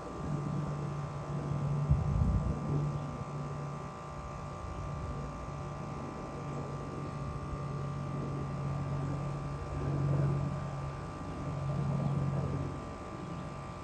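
Boeing AH-64E Apache Guardian helicopter flying past, its twin-turboshaft engines and rotor giving a steady drone that swells twice near the end. There is a low thump about two seconds in.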